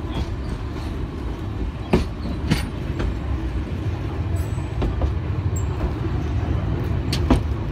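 Train rolling along the track with a steady low rumble, its wheels clacking sharply over rail joints and points: a pair of clacks about two seconds in, another near five seconds, and a quick pair near the end.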